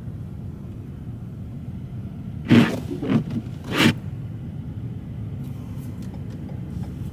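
Car's cabin while driving: a steady low engine and road rumble, with three short louder sounds a little before the middle and a few faint clicks later on.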